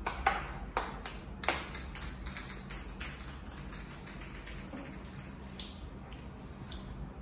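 A series of light, sharp taps with a brief high ringing, irregularly spaced. They are loudest in the first two seconds and grow fainter and sparser after that.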